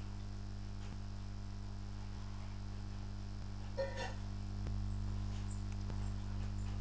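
Steady low hum, with a brief faint pitched sound about four seconds in.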